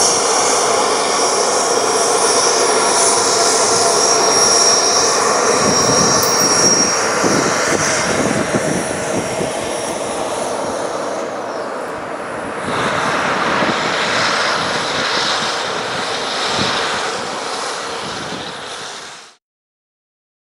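Twin GE F414 turbofans of a US Navy F/A-18F Super Hornet running on the airfield: a steady jet rush with a high turbine whine that fades about seven seconds in. The sound cuts off shortly before the end.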